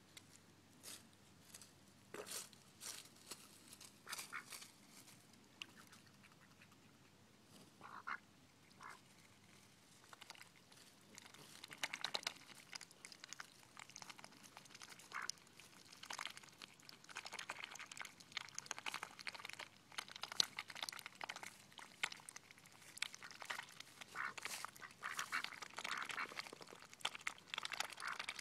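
Pekin and Cayuga drakes dabbling, their bills rapidly sifting and slurping through wet mud and leaves around a water bowl: a fast, dense crackling that starts about ten seconds in. Before that come scattered rustles and a couple of short duck calls.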